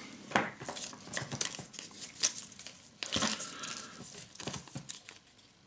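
Thin folded paper instruction slip from a Kinder Surprise egg being unfolded by hand, crinkling in a string of short crackles and rustles.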